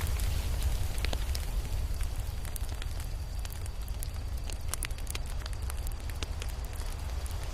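Crackling fire: a steady low rumble of flames with irregular sharp pops and snaps from the burning wood.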